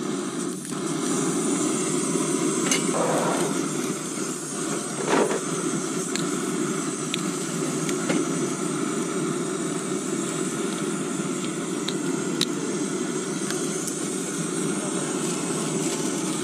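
Small screw-on canister backpacking stove lit with a lighter, its burner catching about a second in and then running with a steady hiss. A few light clicks and knocks from handling on the metal tray.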